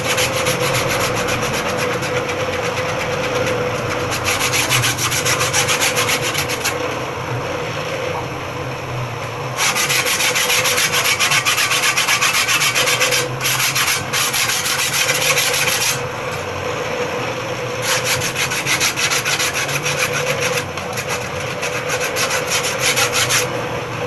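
Bench grinder running with a steady hum while the teeth of a steel hand-saw blade are pressed against the spinning wheel to shape them. The grinding comes as a loud rasp in four spells of a few seconds each, with quieter stretches of the grinder alone between them.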